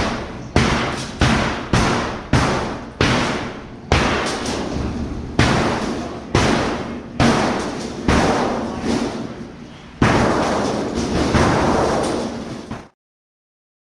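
A run of about a dozen heavy thuds, each ringing out before the next, coming about twice a second at first and then further apart, cutting off suddenly near the end.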